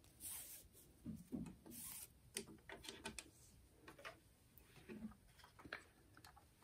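Quiet handling sounds: a cord rustling and rubbing as it is pulled through the hands, with scattered light clicks and knocks as the 3D-printed plastic gearbox is handled and lifted.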